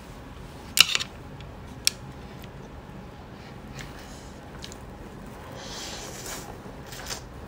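Close-miked eating of saucy instant cup noodles: a few sharp clicks about a second in, then a soft slurp as a mouthful of noodles is drawn in a little before six seconds, followed by another click.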